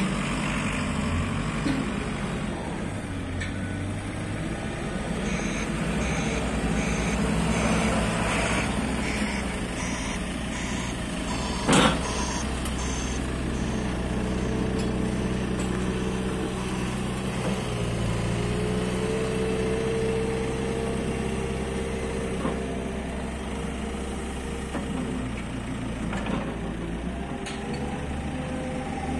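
JCB 3CX backhoe loader's four-cylinder diesel engine running, its revs rising and falling as the machine works. A reversing alarm beeps at an even pace for several seconds in the first half, and there is one sharp metallic clunk a little before the middle.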